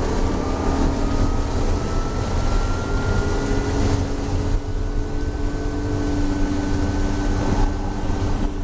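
BMW E36 M3's straight-six engine pulling hard on track, heard from inside the cabin over heavy road and tyre rumble; its pitch climbs slowly for the first few seconds, then holds steady.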